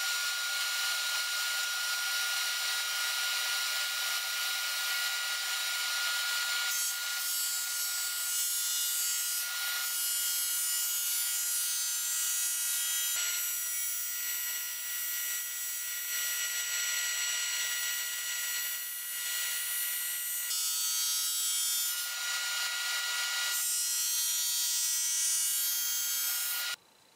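Shopsmith thickness planer running and planing white oak boards: a steady high motor whine over the hiss of the cutterhead. The sound shifts several times and cuts off abruptly near the end.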